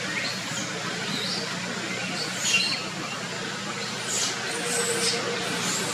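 Outdoor ambience: a steady background hiss with scattered short, high-pitched chirps and squeaks, coming closer together in the second half.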